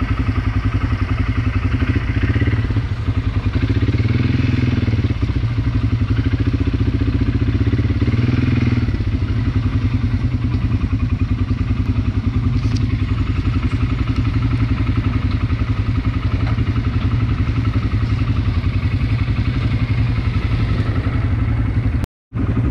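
ATV engine running steadily while riding, its pitch rising and falling a few times between about two and nine seconds in as the throttle is worked.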